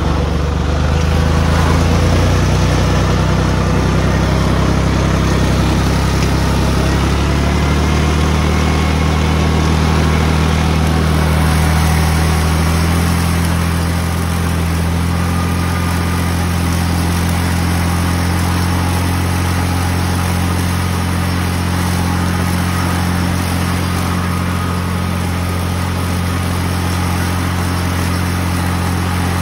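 Farm tractor engine running steadily under load, with a low, even note, as it drives a tractor-mounted mower cutting strawberry plants.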